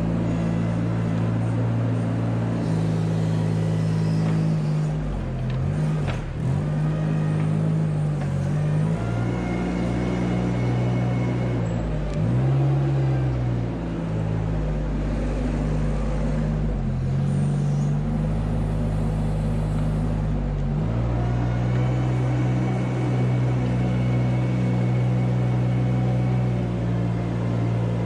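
Engine of a small ride-on manure scraper running steadily as it is driven along a barn alley scraping manure. Its pitch dips and recovers a few times.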